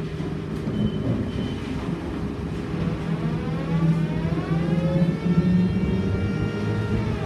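Škoda 14Tr trolleybus running under electric traction, heard from the driver's end. The drive's whine rises in pitch as the trolleybus accelerates away from a turn, then holds steady over a low hum and road noise before easing off near the end.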